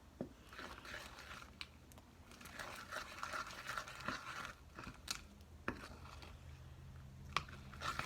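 Spoon stirring freshly activated glue slime in a bowl: faint squishing and scraping, with a few sharp clicks in the second half.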